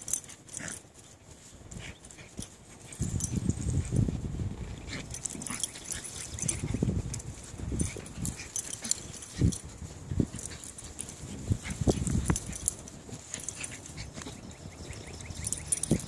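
Small dogs play-fighting and tugging over a toy, making low growling noises in short bouts that start about three seconds in.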